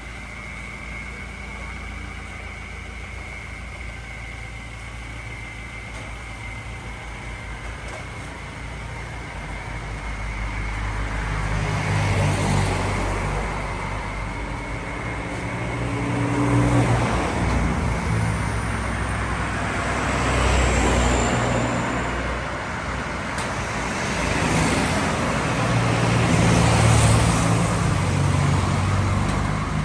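Road traffic: several motor vehicles pass one after another, each one swelling up and fading away with a low engine rumble.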